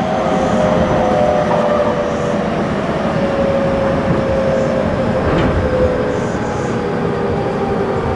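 Tobu 20050 series motor car's GTO-thyristor inverter whining in several thin tones that slowly fall in pitch as the train slows, over the steady rumble of the wheels on the rails, heard inside the passenger car. A single click sounds about five seconds in.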